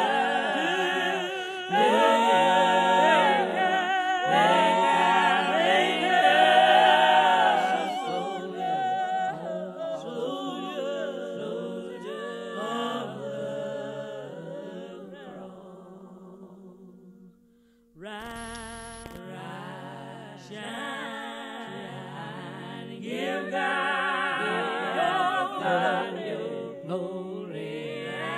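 Unaccompanied choir singing. The singing fades away about two-thirds of the way through, and a new sung passage starts abruptly a moment later.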